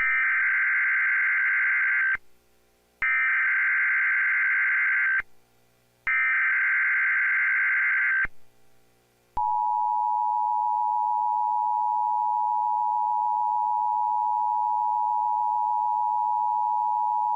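NOAA Weather Radio Emergency Alert System signal: three bursts of SAME digital header data, each about two seconds of harsh warbling buzz with a second's gap between, then the steady 1050 Hz warning alarm tone held for about eight seconds. Together they mark the start of an alert, here a severe thunderstorm watch.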